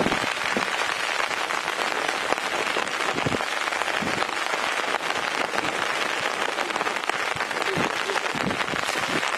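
Steady rain falling, a dense even hiss of many small drop hits.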